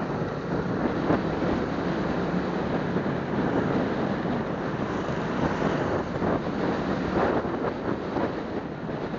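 Wind rushing over the microphone of a moving Suzuki Smash 115 motorcycle, with its engine and road noise running underneath; the noise is steady with a constant buffeting flutter.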